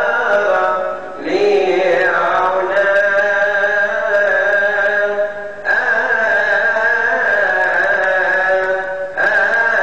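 A priest's voice chanting the Gospel in Coptic liturgical style: long held notes in drawn-out phrases with sliding pitch, broken by short pauses about a second in, just past halfway, and near the end.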